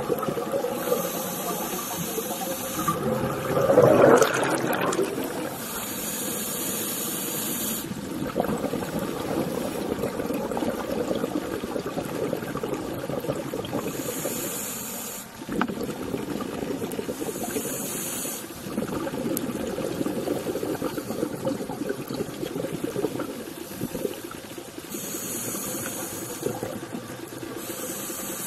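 Scuba diver breathing through a regulator underwater: a hiss on each inhalation every several seconds, between rushing, bubbling exhalations. The loudest exhalation comes about four seconds in.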